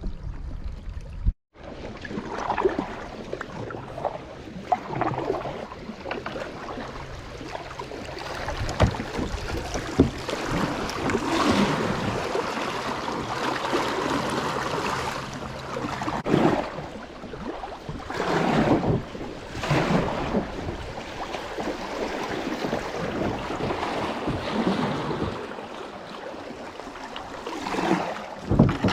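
Water rushing and splashing around a kayak on a creek, swelling and easing every second or two, with wind buffeting the microphone.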